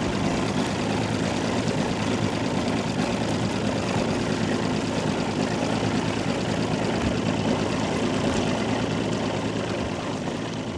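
A boat's motor running steadily at low speed, fading slightly near the end.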